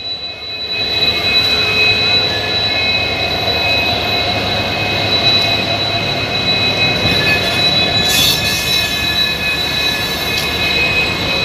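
WDP 4D diesel-electric locomotive, with an EMD 710-series two-stroke V16 engine, idling at the head of a standing passenger train: a steady engine hum with a high-pitched whine over it, growing louder as it comes nearer in the first second. A short hiss about eight seconds in.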